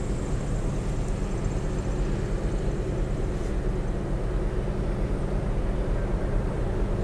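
Steady low engine rumble with an even hum that holds its pitch and loudness throughout.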